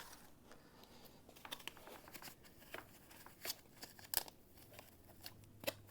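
Small scissors clicking and snapping on plastic zip ties in a few scattered sharp clicks, too weak to cut through them easily.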